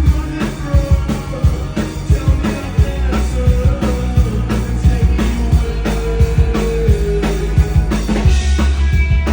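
Live rock band playing an instrumental stretch of a song, a drum kit keeping a steady beat over a heavy bass line.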